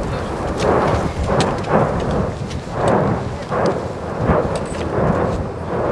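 Lava fountains of the Fimmvörðuháls fissure eruption, a loud roaring rumble that surges about twice a second, with sharp crackles from the spatter.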